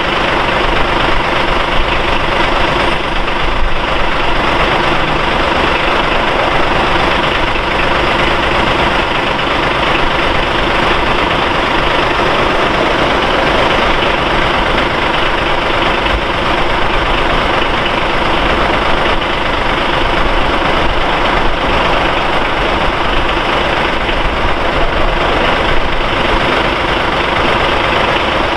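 Fire-department aerial ladder truck's diesel engine idling close by, a loud, steady running sound that does not change.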